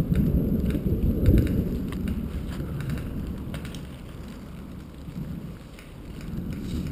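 Low rumbling noise on a GoPro's microphone, swelling and fading, like wind or movement buffeting the mic, with faint scattered crackles.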